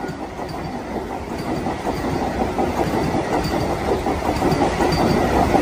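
Vande Bharat Express electric multiple-unit train passing close by at speed: wheels rolling on the rails in a dense rushing rumble that slowly grows louder.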